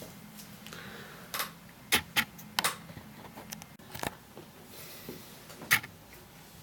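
Handling noise: a hand touching and adjusting the camera, giving a scatter of about six sharp clicks and knocks. The loudest come about two seconds in and near the end.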